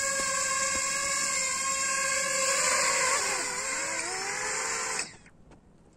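DJI FPV drone's motors and propellers whining steadily, the pitch wavering and dipping about three seconds in as it settles on the ground, then stopping abruptly about five seconds in as the motors shut off.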